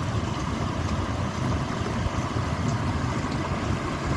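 Steady rushing and splashing of a fountain's water, an even noise with a heavy low rumble.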